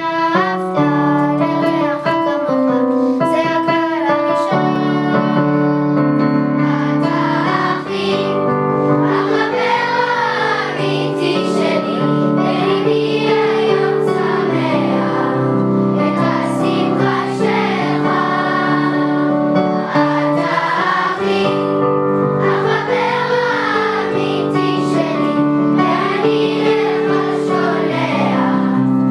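Music: a children's choir singing over a held instrumental accompaniment, the voices coming in about eight seconds in after an instrumental opening.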